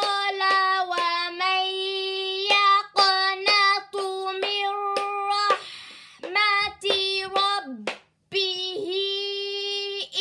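A high voice reciting Quranic Arabic syllable by syllable in a drawn-out, chanted tone, with a pointer stick tapping the page at the start of many syllables. There is a brief hissing consonant just before the middle.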